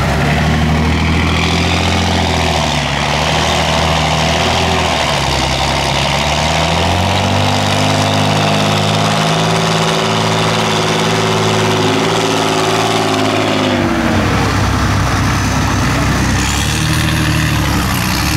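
Off-road trial trucks' engines running under load in deep mud. The revs climb about six seconds in, hold high, then drop suddenly about fourteen seconds in.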